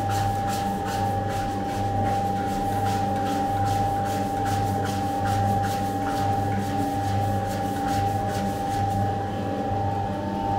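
Electric dough mixer running, its hook kneading a large batch of bread dough in a steel bowl: a steady motor whine with a regular rhythmic pulse.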